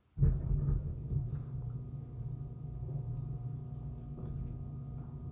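A low, steady mechanical hum comes on suddenly just after the start and keeps running unchanged.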